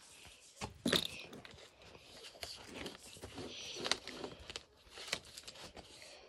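Saddle leather and metal hardware rubbing and clicking as a western saddle's cinch is loosened on a horse, with scattered sharp clicks, the loudest about a second in.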